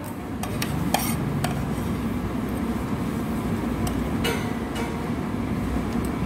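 Spoon and fork clinking against a plate while eating: a few light clinks in the first second and a half, two more about four seconds in, over a steady background hum.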